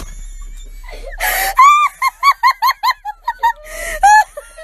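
A person laughing hard and high-pitched: a sharp breathy gasp about a second in, then a quick run of 'ha's, about four a second, and a final wheezy breath and laugh near the end.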